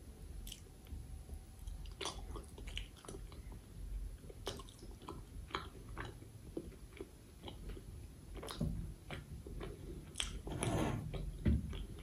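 Close-up chewing and wet mouth sounds of someone eating chicken liver curry with rice: scattered smacks and clicks, with a louder, denser spell about ten seconds in.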